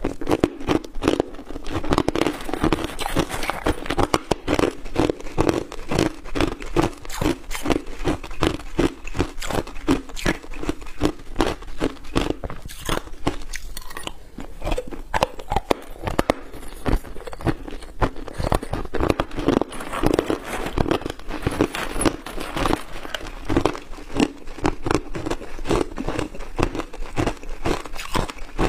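Hard ice chunks being bitten and chewed, picked up close by a clip-on microphone: a continuous run of sharp, cracking crunches, several a second, with a short lull about halfway through.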